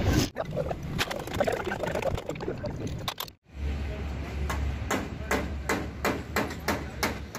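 Low steady rumble with a run of sharp knocks and clicks as someone climbs up into a truck cab and settles into the driver's seat, after a brief break about three seconds in.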